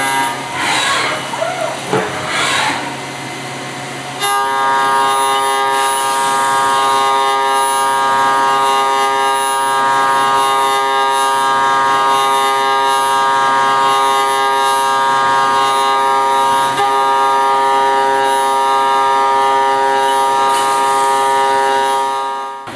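CNC mill cutting a clear plastic chess piece under flood coolant. A steady whine of evenly spaced tones from the spindle and cutter sets in sharply about four seconds in, as the cutter engages, and holds evenly over the hiss of the coolant spray until it drops away just before the end.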